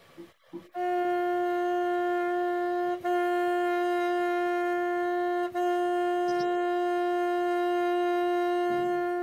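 Trumpet playing one steady note three times at the same pitch: two notes of about two seconds and a longer one of almost four seconds, each joined to the next by only a very brief gap. This is a breathing exercise of two half notes and a whole note, played with relaxed, unbroken air.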